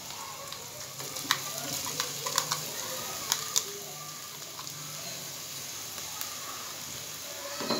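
Freshly added chopped onion sizzling in hot oil in a pot, to be lightly browned. A spoon stirs it, knocking and scraping against the pot a few times in the first half.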